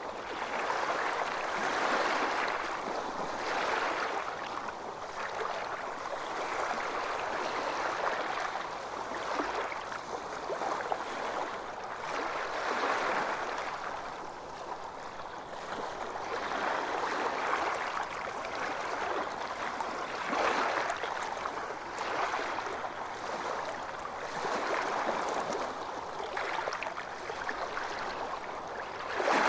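Calm small waves lapping and sloshing, swelling and easing every few seconds.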